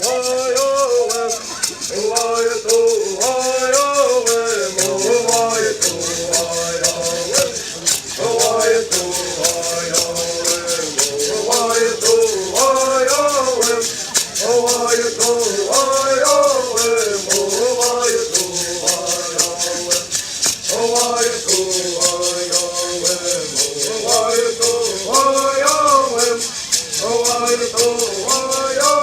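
Bird singing: voices chanting a Bird song in unison, the melody rising and falling in repeated phrases, over the steady beat of shaken gourd rattles.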